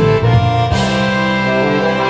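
Instrumental backing music of sustained chords, changing chord about two-thirds of a second in.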